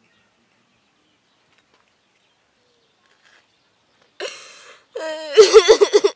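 Near silence for about four seconds, then a girl starts crying loudly, wailing and sobbing in long pitched cries that waver.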